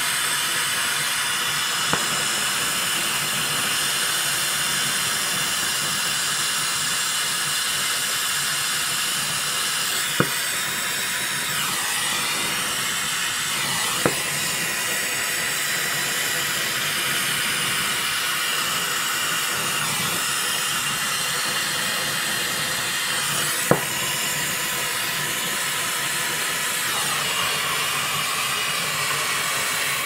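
Oxy-fuel brazing torch flame hissing steadily while a joint on a refrigerator compressor is silver-brazed, with four faint sharp clicks spread through it. The hiss cuts off suddenly at the end as the torch is shut off.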